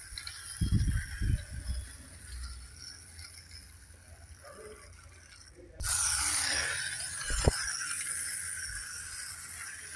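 Clockwork motor of a small plastic wind-up toy train whirring as it runs on plastic track, starting abruptly about halfway through and slowly fading, with a sharp click about a second and a half later. Two dull knocks of the toy being handled come in the first second or so.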